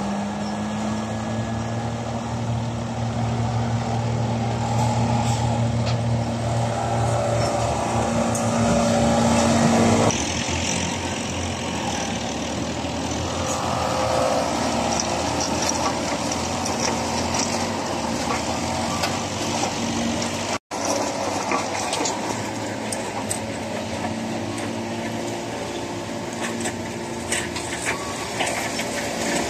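Green corn stalk silage crusher running and chopping stalks, a steady machine din, with a diesel excavator engine humming through about the first ten seconds. The sound changes abruptly at about ten seconds and drops out for an instant about two-thirds of the way in.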